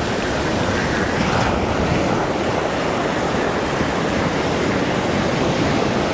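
Ocean surf breaking and washing up a sandy beach in a steady rush of noise.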